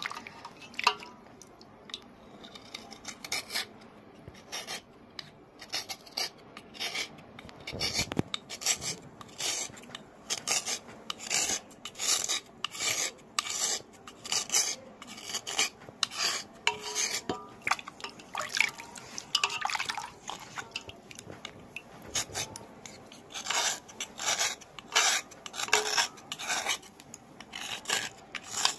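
Small knife blade scraping over the wet surface of a stone in short, repeated strokes, a stroke or two a second, flaking off its outer layers.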